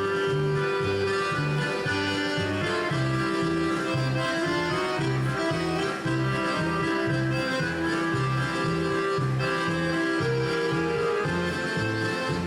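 Polka music: an accordion carries the tune over a bouncing oom-pah bass, about two bass notes a second.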